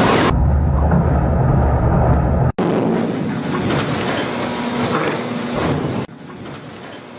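Ship launch: a heavy rumble and rushing, splashing noise as a large hull goes into the water, broken by abrupt cuts between shots. The first cut comes about a third of a second in, another near two and a half seconds, and a quieter section follows about six seconds in.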